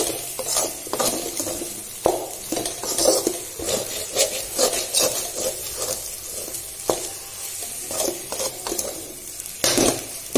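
Slotted metal spatula stirring and scraping scrambled egg and cabbage around a metal kadai, in irregular strokes with light clinks against the pan, while the egg sizzles in the oil.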